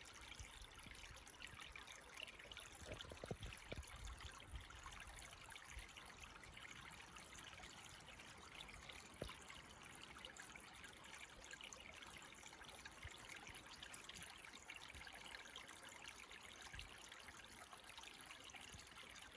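Faint, steady trickle of a small woodland creek, with a few soft low knocks about three seconds in and a single click about nine seconds in.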